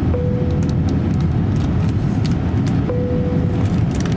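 Cabin noise inside an Airbus A350-900 rolling slowly on the ground: a steady low rumble, with scattered light clicks and a faint steady hum that comes in twice for about a second each.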